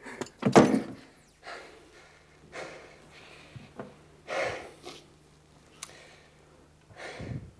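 A man breathing hard, out of breath, in a string of irregular noisy breaths and sniffs, with the strongest puffs near the start and about four and a half seconds in.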